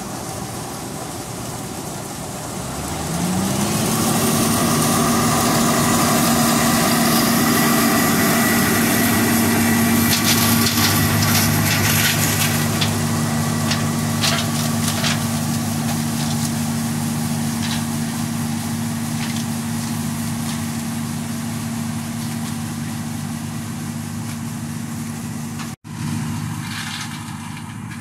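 John Deere 6620 Turbo combine's turbocharged diesel running as it harvests corn. The engine pitch rises about three seconds in and then holds steady under load, with scattered sharp cracks through the middle. It drops back a little after a sudden break near the end.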